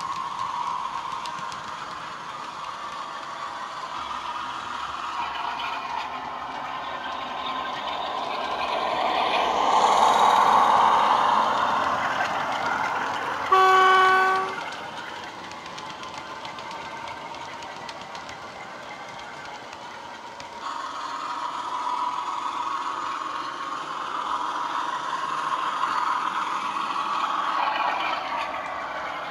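Sound decoder in a Bachmann class 47 model locomotive playing a class 47's Sulzer diesel engine through two small bass speakers. The engine note grows louder as the train passes close and then fades. About halfway through there is one horn blast about a second long, the loudest sound here.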